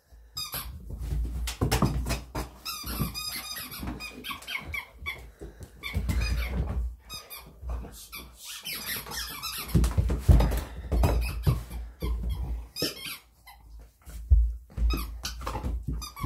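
A whippet-saluki lurcher chewing a squeaky toy, setting it off in many short squeaks in irregular runs.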